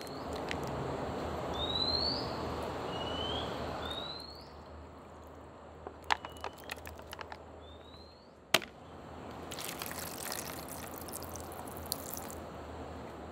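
Liquid soup poured from a packet over noodles in a plastic tray, then a thin stream of water poured from a jug into a self-heating pot's plastic outer container near the end. A bird chirps short rising notes every second or two, and a few clicks and one sharp knock fall in the middle.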